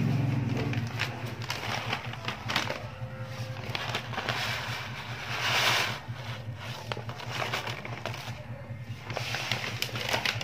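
Crispy fried shallots crackling and rustling as they are handled and poured into a plastic tub, with a louder rush of pouring a little over five seconds in. A low steady hum runs underneath, strongest in the first second.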